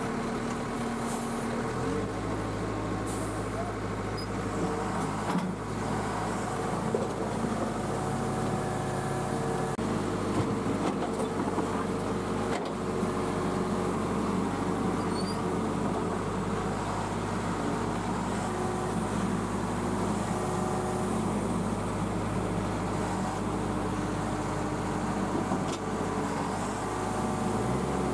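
Diesel engine of a backhoe loader running steadily under work, a continuous low hum whose note shifts about two seconds in and again near the end.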